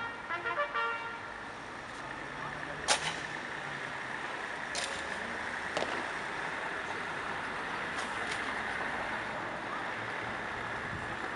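A trumpet call ends on its last notes about a second in. Then comes a steady wash of city traffic noise, broken by a few sharp knocks as the honour guard handles its rifles. The loudest knock is near the three-second mark.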